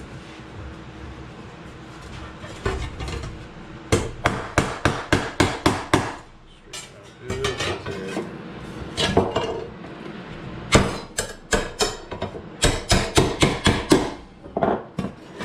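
Hammer striking sheet steel in quick runs of sharp metallic blows, about four a second, with pauses between runs, as the steel is worked along a marked line for a bend.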